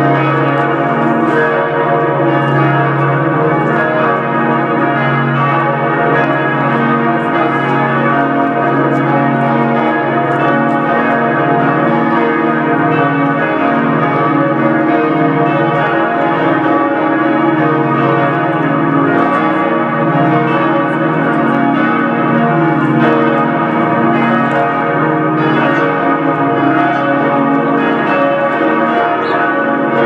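Several large church bells swinging in a tower and ringing together, their strikes overlapping continuously with a lasting deep hum beneath.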